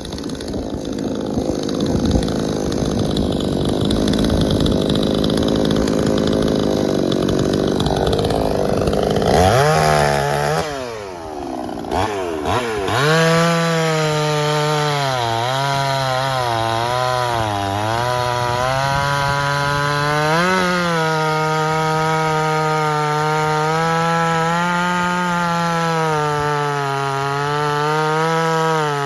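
Two-stroke gas chainsaw running at full throttle through wood. About ten seconds in the engine note drops and the sound briefly falls away, then it revs back up and holds a high, steady pitch that sags slightly now and then under the load of the cut.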